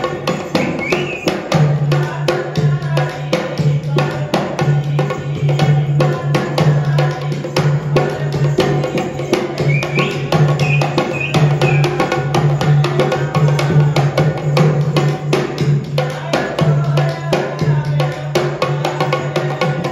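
Folk music for a Rajasthani string-puppet show: fast, steady drum strokes over a continuous low drone, with a few short high squeaking glides about ten seconds in.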